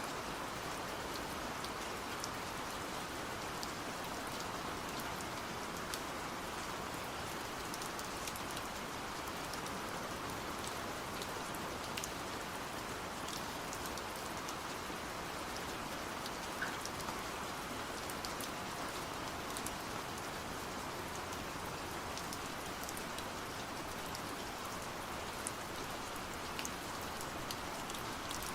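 Steady rain falling, with scattered single drops tapping out above the even patter.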